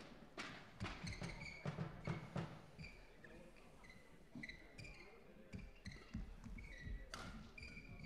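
Short high squeaks of court shoes on the hall floor, scattered through, with sharp taps and thuds of footsteps and shuttlecock hits.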